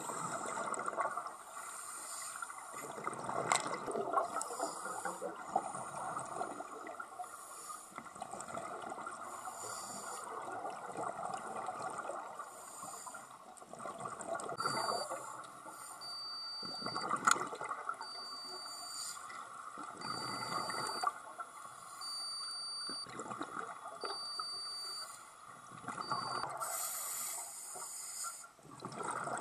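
Scuba regulator breathing heard underwater: exhaled bubbles rush and gurgle in swells every few seconds between quieter stretches. A short high beep repeats about once a second for roughly ten seconds in the middle.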